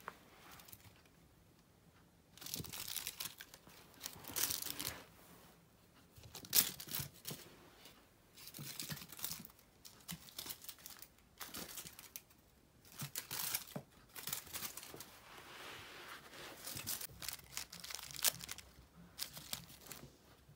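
A cat toy's crinkly strip rustling and crinkling in irregular bursts as a kitten bats, bites and kicks it.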